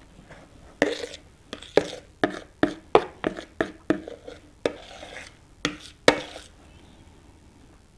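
Metal icing spatula scraping and knocking against the inside of a plastic mixing bowl: about a dozen short, sharp strokes roughly two a second, getting the last of the icing out of the bowl.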